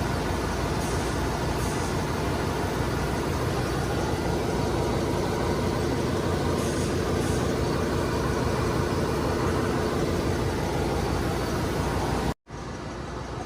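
Steady drone of running machinery in a ship's engine room, with a low hum under a broad hiss. Near the end it cuts out for an instant and comes back somewhat quieter.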